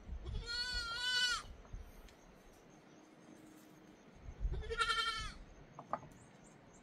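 A goat bleating twice, each long quavering bleat lasting about a second, the second coming about four seconds after the first.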